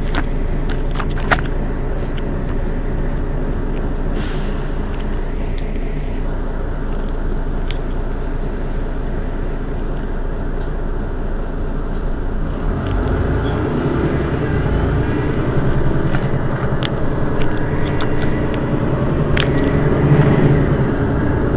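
Mercedes-Benz Citaro city bus engine idling steadily at a stop, with a few sharp clicks. About twelve seconds in, a louder low running sound builds up and keeps growing to the end.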